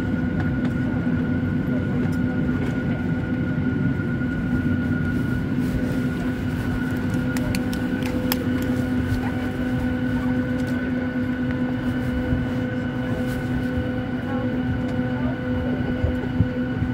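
Airliner cabin during boarding: a steady hum from the aircraft's air system, holding a few fixed tones, under low passenger chatter, with a few small clicks and knocks.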